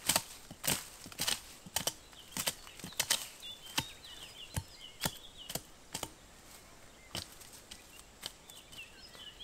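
Fiskars X7 hatchet chopping branches off a fallen birch trunk: a steady run of sharp chops, about one and a half to two a second, with a short pause about seven seconds in.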